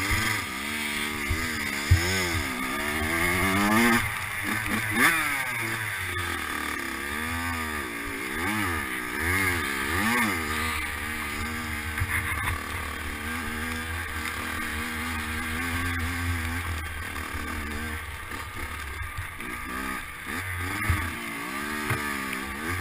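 Dirt bike engine revving up and down again and again as it is ridden hard, rising in pitch and dropping back every second or two, with a steady low rumble underneath.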